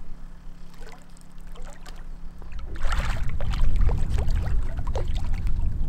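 A hooked fish splashing and swirling at the river's surface as it is played on the line, in several short splashes. A low steady hum runs through the first half, and wind rumbles on the microphone from about three seconds in.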